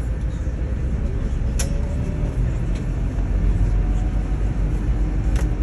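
Airport apron bus interior: the bus's low, steady engine and road rumble, with a faint whine slowly rising in pitch. Two sharp clicks or rattles come about a second and a half in and again near the end.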